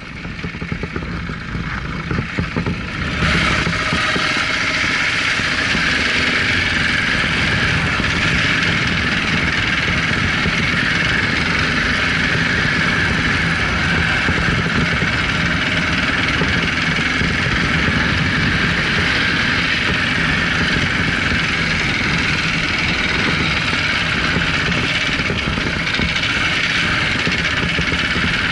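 KTM 690 Enduro R's single-cylinder engine running as the motorcycle rides along an off-road track. It is quieter and uneven at first, then grows louder about three seconds in and stays steady.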